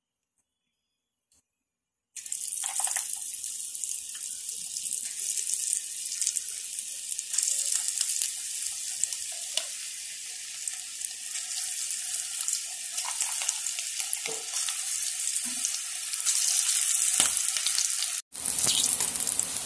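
Tapioca bonda batter balls deep-frying in hot oil: a steady crackling sizzle that starts suddenly after about two seconds of silence, with a brief cut-out near the end.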